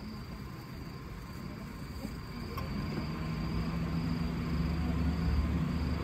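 Steady high-pitched insect chirring, with a low engine hum that grows louder from about halfway through.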